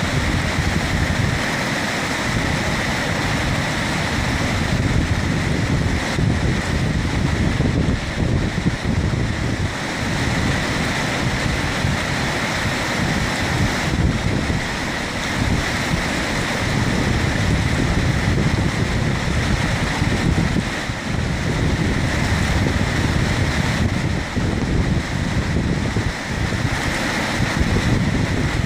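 River rapids rushing steadily, a dense, even water noise with a deep rumble, with some wind buffeting on the microphone.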